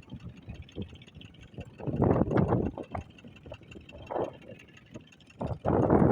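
Strong wind gusting across the microphone: low, rumbling buffeting in two loud surges, about two seconds in and again near the end, over a lower rustle between.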